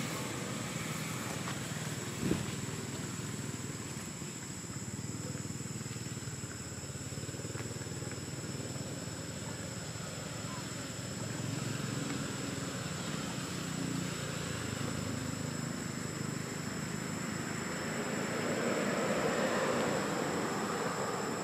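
Outdoor background noise: a steady hiss with a thin high-pitched whine throughout, a low rumble like distant traffic that swells near the end, and a single knock about two seconds in.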